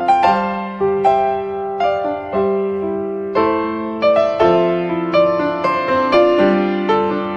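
Background piano music: a slow, gentle melody of struck notes and chords, each note ringing and fading before the next.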